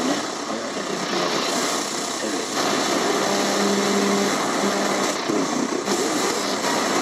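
Shortwave static and hiss from a Tecsun PL-880 receiver's speaker as it is tuned across the 49-metre band, with faint snatches of voices from stations passing by. A steady low tone sounds for about a second and a half, about three seconds in.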